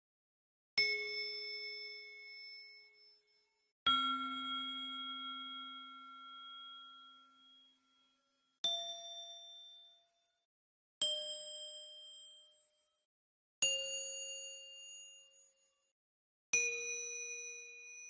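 A bell struck six times, each a single ding that rings out and fades over two to four seconds. Each strike is at a different pitch; the second is the lowest and rings the longest.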